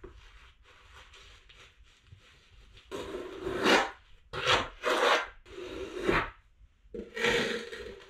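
A flat steel knife scraping and smearing mortar over the end of a foam shower curb and the wall joint. It is quiet and scratchy at first, then comes in five loud scraping strokes starting about three seconds in.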